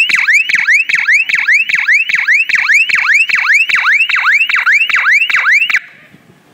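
Small electronic siren on a homemade airsoft fake-bomb prop, sounding a loud, fast rising whoop about four times a second, then cutting off suddenly near the end.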